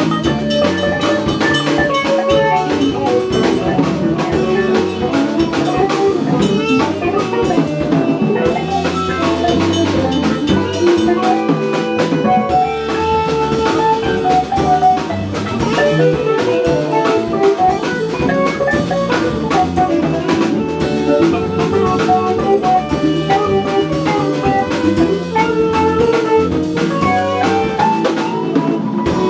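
Small jazz band playing live: drum kit with cymbals, electric and synth guitars and bass, with held notes over a steady beat.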